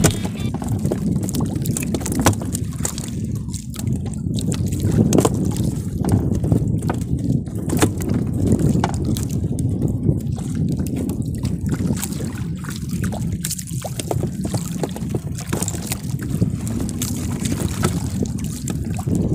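Wind buffeting the microphone and waves washing around a small outrigger fishing boat on choppy sea, a steady low rumble, with scattered short knocks and clicks.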